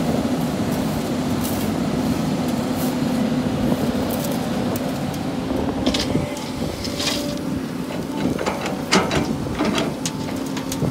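Sany hydraulic excavator's diesel engine running with a steady hum. From about halfway through come sharp clatters and knocks as a bucketload of sand is tipped into a steel dump truck bed.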